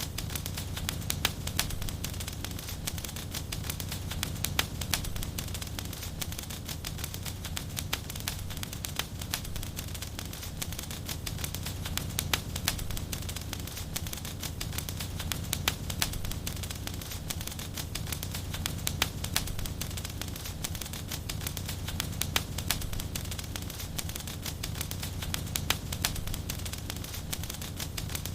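Wood fire burning in a fireplace: dense, irregular crackles and pops over a steady low rumble.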